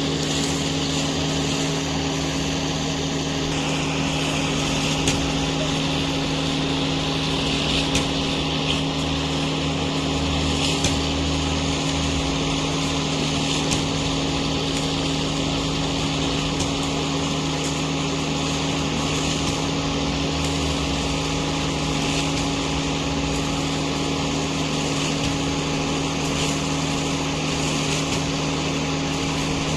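Diesel engine of a truck-mounted concrete mixer pump running steadily at constant speed with an even hum, with a few brief sharp clicks in the first dozen seconds.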